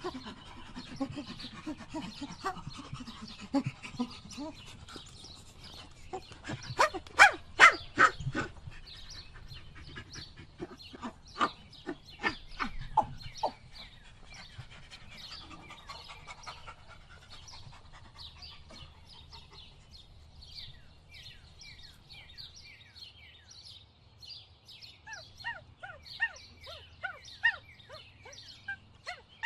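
Wild animal calls and birdsong. It opens with a run of low repeated calls, then come two bursts of loud, sharp calls in quick succession about seven and twelve seconds in, and in the last third birds chirp over and over with quick falling notes.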